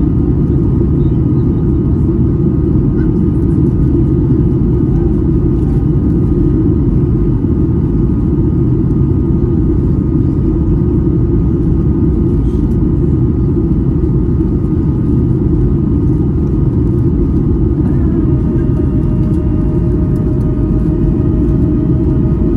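Steady, loud engine and airflow rumble inside the cabin of a Boeing 737-800 on approach with its flaps extended, heard from a window seat over the wing. A higher steady whine joins the rumble about eighteen seconds in.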